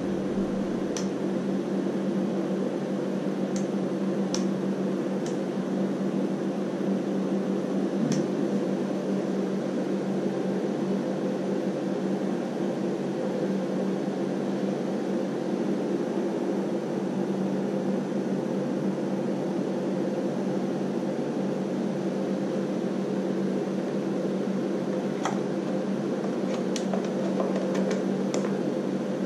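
A homemade 12 V soldering smoke extractor's fan running with a steady whir and hum. A few light clicks and taps sound over it, several close together near the end.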